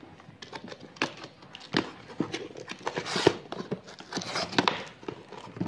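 A taped cardboard parcel being pulled open by hand: irregular crackling, tearing and scraping of cardboard and tape, loudest about three seconds in.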